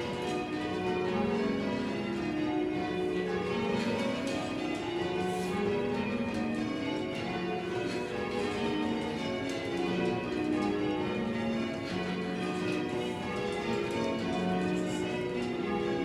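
Cathedral tower bells in full-circle change ringing: several bells of different pitch struck one after another in an unbroken sequence, their tones overlapping.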